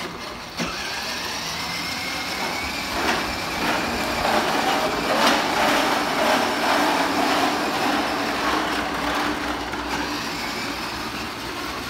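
Battery-powered children's ride-on toy motorbike running: a small electric motor whirring, with a faint rising whine early on, and hard plastic wheels rolling and rattling over a tiled floor, a little louder in the middle.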